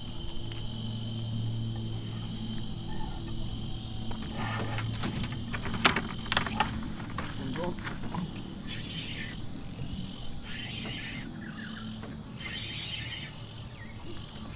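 Insects calling in a steady high-pitched chorus over a steady low hum, with a few sharp knocks around the middle. In the second half the insect sound comes in pulsing bursts.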